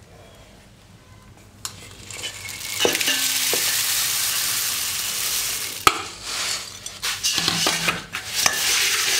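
Puffed rice poured into a stainless steel bowl: a steady dry rustling hiss for about three seconds, starting about two seconds in. A sharp clink follows, then a slotted steel spatula stirring and scraping the rice against the bowl.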